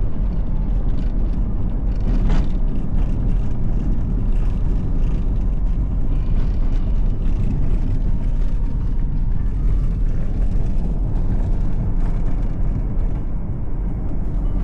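City road traffic: a steady low rumble of passing vehicles, with a short sharp sound about two seconds in.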